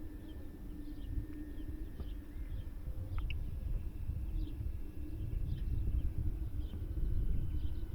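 Electric motor of an FMS Cessna 182 RC plane giving a thin, steady whine that sinks slowly in pitch at low throttle on landing approach, over a steady low rumble.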